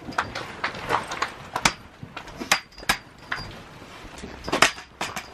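Tent poles and shelter fabric being handled during pitching: irregular clicks, knocks and rustling, the loudest knock about four and a half seconds in.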